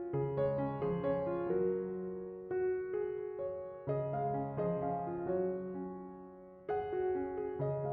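Background music: a gentle piano playing slow notes and chords, each struck and left to fade.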